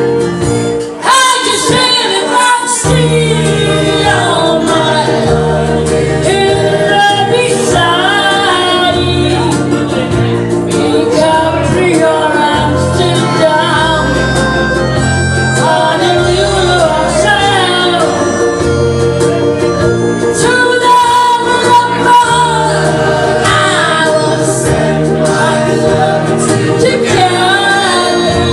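A solo singer performing through a microphone and PA over backing music, with a steady bass line under the voice.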